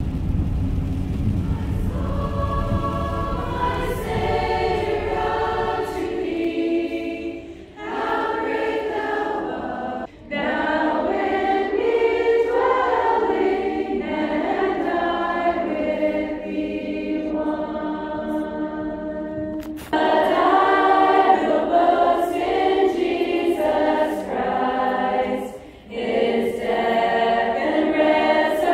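A congregation of women singing a hymn together, line by line with short pauses between phrases. A low rumble fills the first two seconds before the singing comes in.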